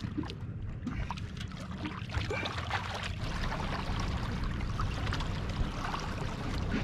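Water splashing and sloshing against a boat's hull as a hooked sailfish thrashes alongside, over a steady low rumble.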